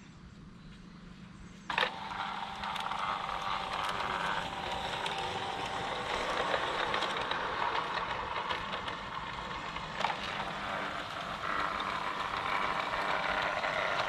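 G-scale model locomotive pulling away from its station stop under Arduino/Raspberry Pi PWM speed control. Its running noise starts abruptly with a sharp click about two seconds in, then continues as a steady mechanical noise with another click about ten seconds in.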